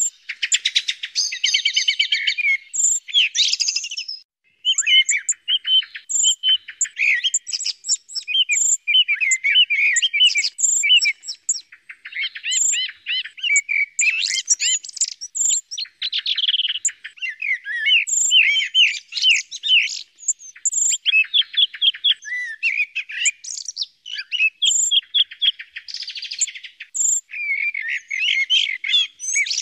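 Recorded songs of a common blackbird and a song thrush together: a dense, almost unbroken run of short, varied whistled and chirping phrases, a bird-call recording of the kind played to lure thrushes.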